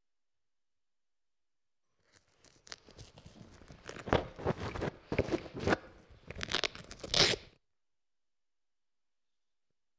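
Microphone handling noise: rustling, scraping and knocks against the mic, starting about two seconds in and cutting off sharply about five seconds later.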